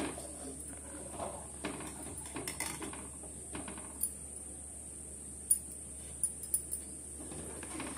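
A steel spoon stirring milk and foxtail millet in an aluminium pot: soft scraping against the pot, then a few sharp metallic clinks, the loudest about five and a half seconds in.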